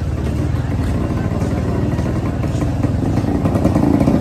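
Small motorcycle engine running steadily at low speed, its fast low firing rhythm constant and getting a little louder near the end.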